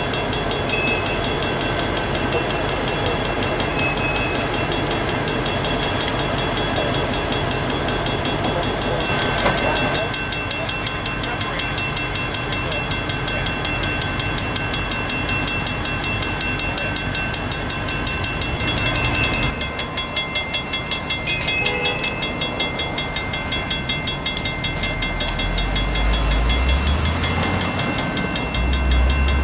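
Union Pacific diesel locomotives running at a standstill: a steady engine rumble under many high, evenly stacked ringing tones that pulse rapidly and regularly. A deeper engine swell rises near the end.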